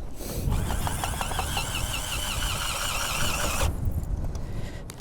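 Power drill screwing an ice anchor into the ice. The motor whines with a wavering pitch over a low rumble for about three and a half seconds, then stops suddenly. Wind buffets the microphone throughout.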